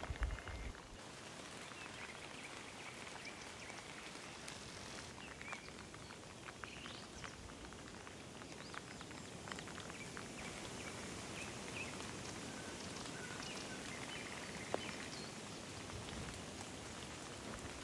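Steady rain falling, an even hiss of drops. There are a few faint high chirps and a single sharp click near the end.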